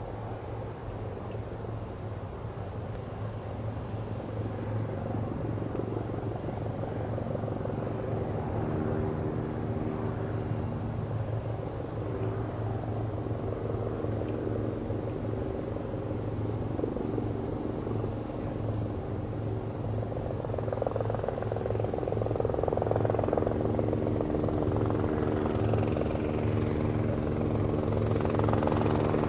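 Aérospatiale AS350B Écureuil helicopter approaching to land, its rotor and turbine drone growing steadily louder as it comes closer, with a steady whine coming in about a quarter of the way through.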